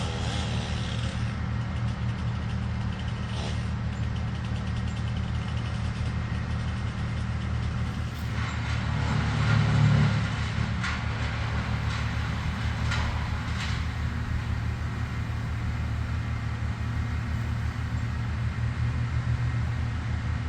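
A large engine running steadily with a low drone, swelling louder for a moment about ten seconds in, with a few sharp knocks in the middle.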